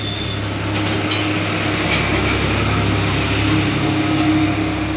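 A steady mechanical hum like a running engine, growing a little louder over the first second, with a few short clicks in the first two seconds.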